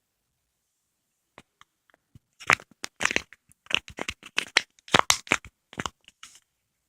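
Peach konjac jelly and its plastic packaging handled close to the microphone, before it is eaten. A run of sharp crackling, crushing sounds starts about a second and a half in, comes thickest in the middle and stops shortly before the end.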